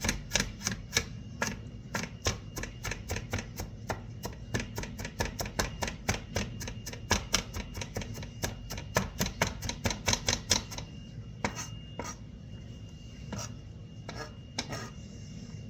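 Kitchen knife chopping an onion on a cutting board: quick, even strikes several times a second, thinning to a few scattered cuts after about ten seconds.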